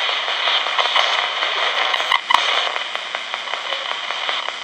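RadioShack pocket AM/FM radio used as a ghost box, sweeping through the AM band: a steady stream of static hiss chopped by rapid clicks as it jumps from station to station, with two sharper pops a little after two seconds in.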